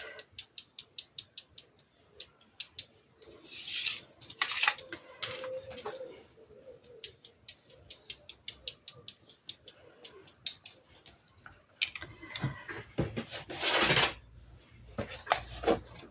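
Fan brush loaded with gold paint being tapped to spatter paint onto paper cards: quick light ticks, several a second. Paper rustles and knocks as the cards are handled, loudest about twelve to fourteen seconds in.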